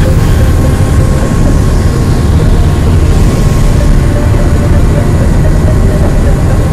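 Thames Clipper river ferry under way at speed, heard from its open rear deck: a loud, steady rumble of the boat's engines and churning wake, with wind buffeting the microphone.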